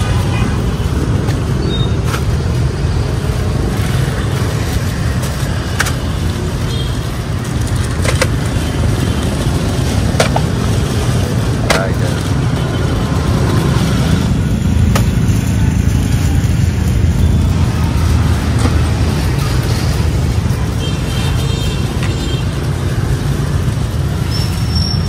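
Steady road traffic noise with indistinct voices mixed in, and a few sharp clicks along the way.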